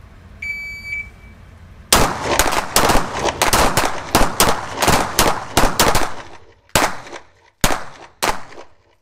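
A short electronic beep starts the timed string. About a second later comes a rapid, overlapping volley of pistol shots from several shooters firing at once, fast for about four seconds and then thinning to a few single shots near the end.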